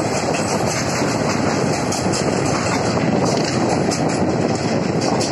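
Wheels of loaded freight wagons rolling past on the rails as the tail of the train goes by, with wind buffeting the microphone.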